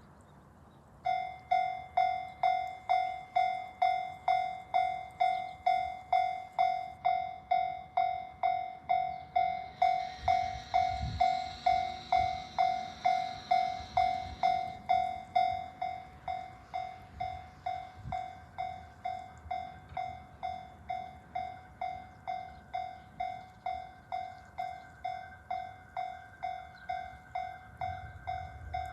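Japanese level crossing's electronic warning bell ringing in an even, repeated ding about twice a second. Midway a train rushes through the crossing, and after it passes the bell rings on somewhat quieter.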